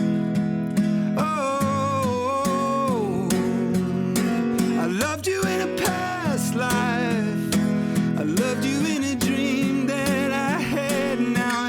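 Acoustic guitar strumming under a wordless sung vocal line that glides between notes with vibrato.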